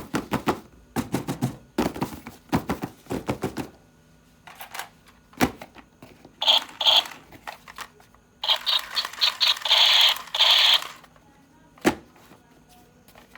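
Plastic toy pieces and packaging being handled: a quick run of clicks and knocks, then two bursts of scratchy, crackling noise, with single sharp clicks in between.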